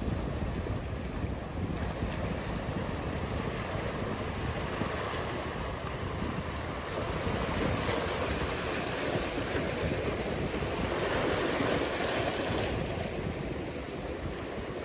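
Ocean surf breaking and washing, with wind noise rumbling on the microphone; the wash swells louder about halfway through and eases off near the end.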